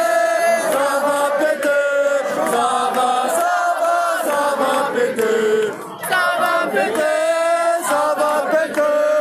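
A large crowd of protesters chanting in unison, a sung chant of many voices on held notes, with a short break just before six seconds in.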